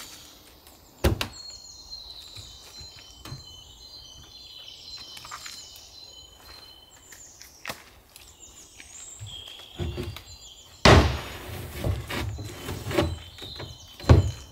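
Wooden OSB panels of a folding cabin being handled and taken down: a sharp knock about a second in, then from about ten seconds a loud rustle with a run of heavy thumps and knocks. Birds chirp in the background in between.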